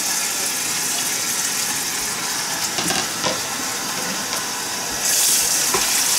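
Kitchen tap running into a stainless steel bowl in the sink, a steady splashing hiss that grows louder about five seconds in. A few light knocks come about halfway through.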